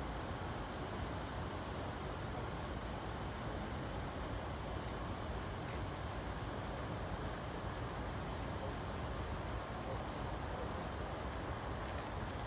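Steady low rumble and hiss of distant vehicle noise, even throughout with no distinct events.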